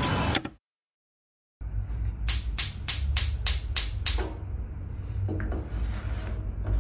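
Push-button spark igniter on a gas cooker clicking about four times a second, seven sharp clicks in all, then stopping.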